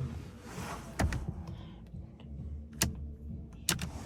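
Three sharp clicks from a 2005 Infiniti G35's headlight and turn-signal stalk switch being worked through its positions, with some rustling at the start and a steady low hum underneath.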